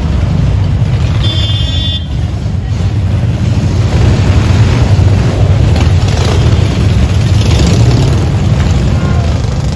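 A line of motorcycles riding past at low speed, their engines making a steady low rumble that gets louder about four seconds in. A short horn toot sounds about a second in.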